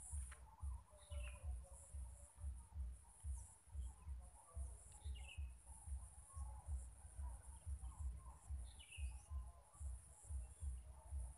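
Faint outdoor ambience at a pond: short falling bird chirps every few seconds over a steady high insect hiss, with an uneven low rumble throughout.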